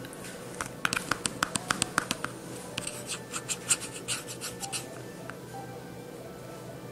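A cat grooming itself with its tongue: a quick series of short rasping licks, about six a second, then a second run of sharper ones, stopping about five seconds in.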